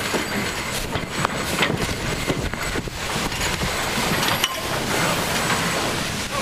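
Steady rush of wind and water on a sailboat under way, broken by scattered sharp snaps and rustles as a line is hauled hand over hand and the sail cloth moves.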